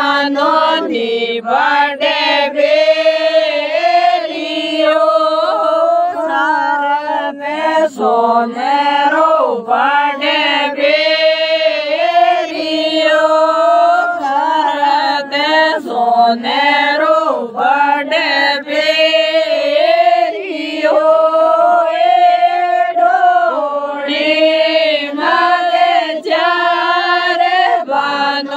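Group of voices singing a traditional folk wedding song (vivah geet) in a chant-like melody with long held notes.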